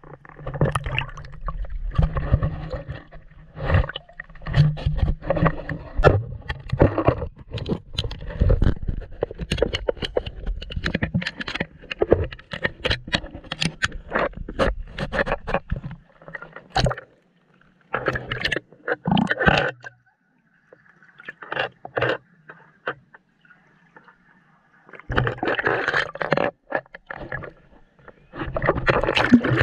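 Pool water sloshing and splashing against a camera held at the waterline, with irregular knocks and a muffled low rumble as the housing dips in and out of the water. It goes quiet for a few seconds in the middle, with only short splashes, then picks up again near the end.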